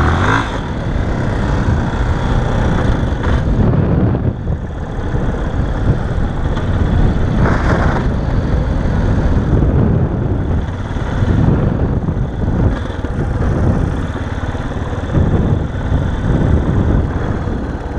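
Yamaha XTZ 250 Ténéré's single-cylinder four-stroke engine running while riding on a sandy dirt track, its loudness rising and easing several times with the throttle, mixed with wind noise on the microphone.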